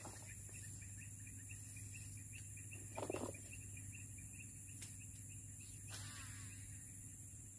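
Insects chirring steadily in the grass, with a quick run of chirps over the first few seconds. A brief rustle about three seconds in is the loudest thing. Near six seconds a lure is cast: a click and a short whirr from the baitcasting reel's spool paying out line.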